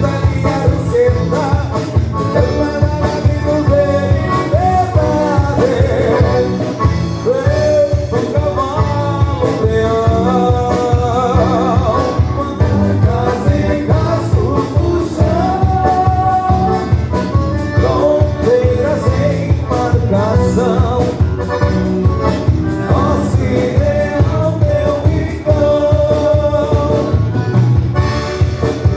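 A live band playing a gaúcho song, with a drum beat and a lead melody line over it.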